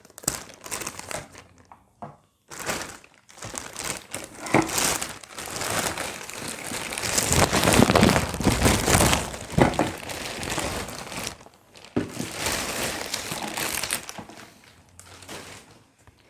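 Packaging crinkling and rustling by hand as an electric kettle is unpacked, with a few knocks along the way; the handling is loudest around the middle.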